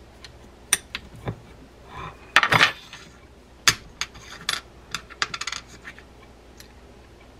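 Light metallic clinks and clicks from a wrench and the reverse-threaded handle nut being worked onto a small lever drag fishing reel's handle shaft. They come irregularly, with quick little runs of clicks about two and a half and five and a half seconds in.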